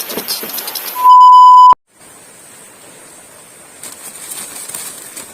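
A single steady, loud bleep tone, shorter than a second, that starts about a second in and cuts off abruptly; it is the kind of 1 kHz tone used as an edited-in censor bleep. Light rustling and clicks come before it.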